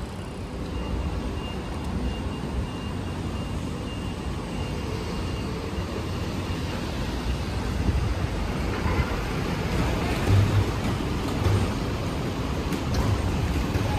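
City street traffic: a steady low rumble of cars and trucks on the road, with a faint steady high whine through the first half and a few louder low bumps in the second half.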